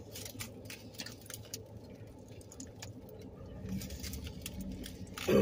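Close-up eating sounds: chewing and the crinkle of burritos' aluminium foil wrappers, heard as small scattered clicks and rustles over a faint low hum. At the very end comes a short, loud sound that falls sharply in pitch.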